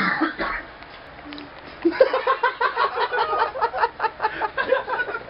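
A person laughing: a quick run of short voiced bursts starting about two seconds in and lasting some three seconds, after a brief loud sound at the very start.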